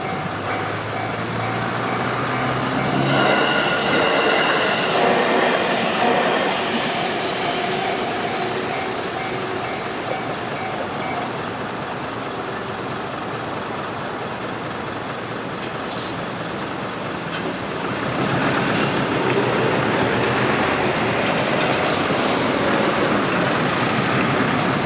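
Electric passenger train on the JR Tokaido Main Line running through a level crossing while the crossing's warning bell rings in rapid pulses; the bell stops about eleven seconds in. A loud rush of running noise builds again about eighteen seconds in.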